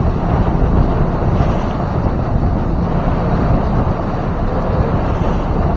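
A 2000 StarCraft motorboat running under way through big waves, its motor and water noise heard as a steady low rush, with wind buffeting the microphone.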